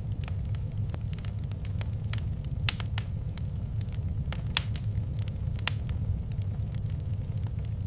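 Fireplace fire crackling, with irregular sharp pops over a steady low rumble; three louder snaps stand out near the middle.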